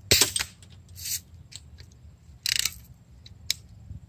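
BB gun clicks and snaps: a few separate sharp clicks, the loudest right at the start, a short cluster about halfway through, and another sharp click near the end.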